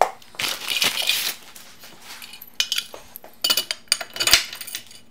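Metal hardware clinking and rattling as a pinball cabinet's leg bolts and fittings are handled, with a rustling clatter about a second in and a sharp knock near the end.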